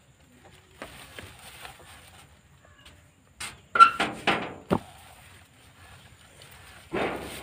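A woven rope cot creaking and rustling as a person turns over on it, with a quick cluster of knocks and creaks about halfway through and a short rustle near the end.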